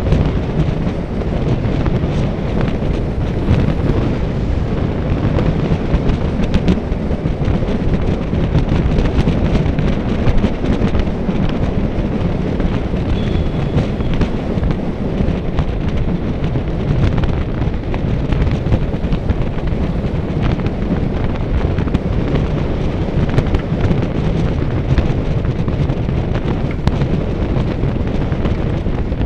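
Loud, steady wind buffeting the microphone, a continuous low rumble without a break.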